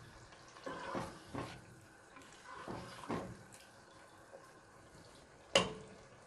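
A black spatula stirring chicken in a wet yogurt masala gravy in a cooking pot: a few soft, wet scrapes and squelches, then one sharp knock near the end.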